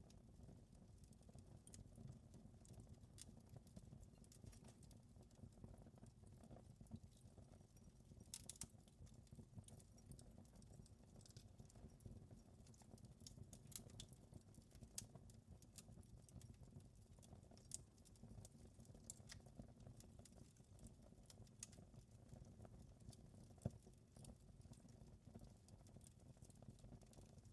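Faint wood fire crackling in a fireplace: irregular sharp pops and snaps over a low steady rumble, with one louder pop late on.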